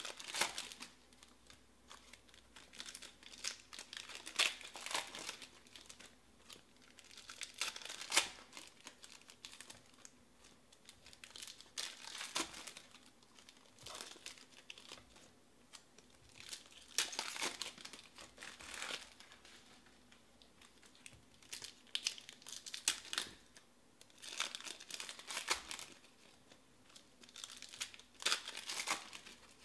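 Foil wrappers of 2020 Panini Select baseball card packs crinkling and being torn open by hand, in bursts every few seconds.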